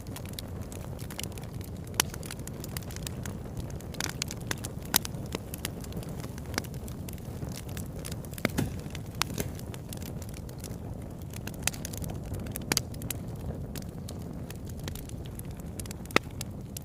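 Wood fire in a fireplace crackling and popping: a steady low rumble of flames with frequent irregular sharp snaps, a few louder pops standing out.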